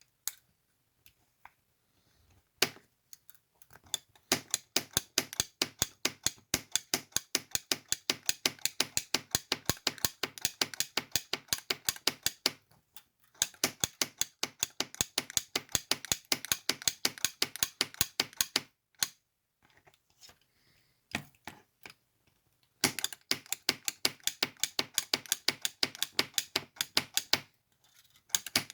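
3D printed rivet cutting tool working in quick runs of sharp plastic clicks, about four or five a second, as it cuts 3D printer filament into rivets. The clicking stops briefly a little before the halfway point and again for a few seconds near two thirds of the way through.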